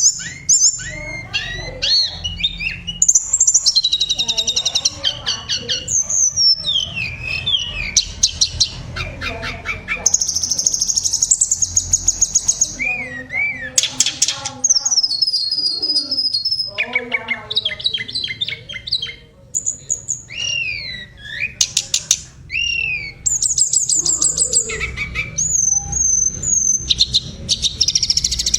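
Tledekan (flowerpecker) singing a varied, continuous song. It mixes quick chattering trills, short rising and falling whistled sweeps and a few held high notes, with hardly a pause.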